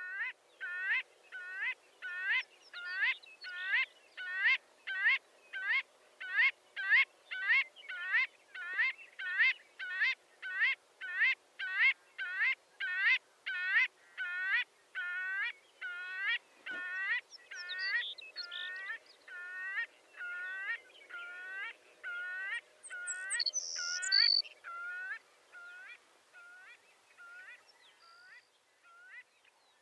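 Marbled godwit calling in a long run of rapid, repeated upward-hooked notes, about two a second, which slow and fade in the last few seconds. A brief higher-pitched squeak cuts in about three-quarters of the way through.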